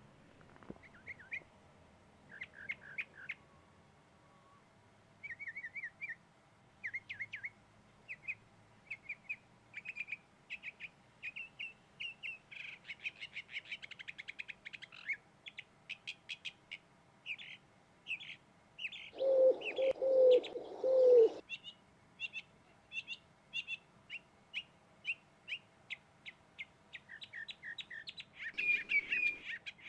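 Songbirds chirping and singing in a steady string of short, high, repeated notes. About two-thirds through, a louder run of about four low cooing notes sounds.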